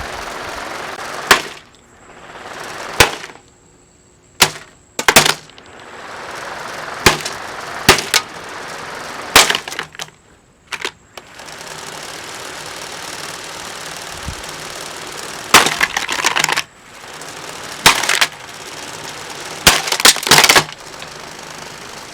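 A Lasko box fan being smashed: about a dozen loud, sharp blows with plastic cracking and breaking, at irregular intervals and some in quick bursts. A steady rushing hiss fills the gaps between the blows.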